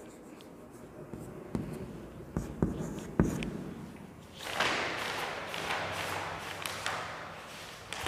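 Chalk tapping and scraping on a blackboard as a word is finished, with a few sharp taps in the first three seconds. From about halfway, a steady rustling and handling noise takes over.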